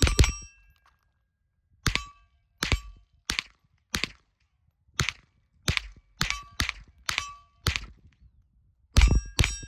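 Mauser M-15 semi-automatic .22 LR rifle firing through a Warrior Systems Legionary suppressor, about fifteen shots at an uneven pace, mostly half a second to a second apart. Many of the shots are followed by a short metallic ring.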